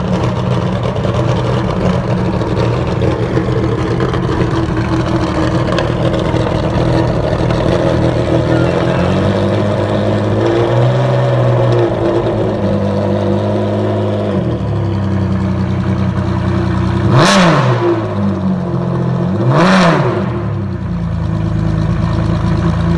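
Ferrari Enzo's naturally aspirated V12 with a Capristo exhaust, running at idle after a cold start. Its idle lifts slightly about ten seconds in. Two short, sharp revs follow a couple of seconds apart late on, and these are the loudest moments.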